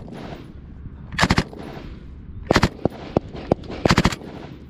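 M249 light machine gun firing three short bursts of a few rounds each, about a second and a half apart. A few fainter single shots fall between the second and third bursts.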